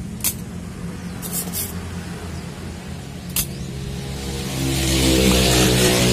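Spring-loaded desoldering pump snapping as it sucks solder off electrolytic capacitor joints on a CRT TV circuit board: a sharp click a quarter second in, a quick cluster of three around one and a half seconds, and one more near three and a half seconds. A steady low hum runs underneath, and from about four and a half seconds a motor vehicle's engine swells louder.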